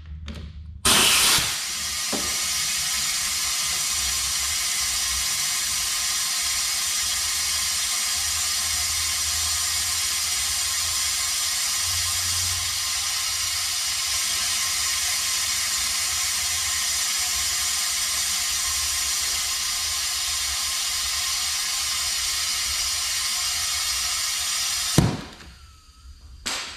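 Compressed air hissing steadily through the venturi of a coolant vacuum-fill tool, pulling a vacuum on the radiator. It starts with a sharp blast about a second in and cuts off suddenly near the end.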